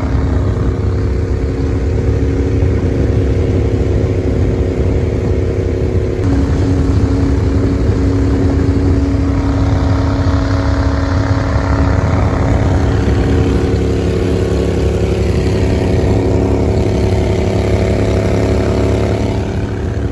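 Pro-Drive mud motor pushing the flat-bottom boat across open water at steady running speed, its pitch stepping up slightly about six seconds in.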